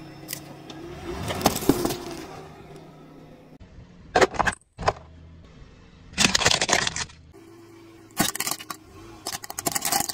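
A car tyre rolling over and crushing objects, among them a plastic toy sports car, in about five separate bursts of cracking and crunching.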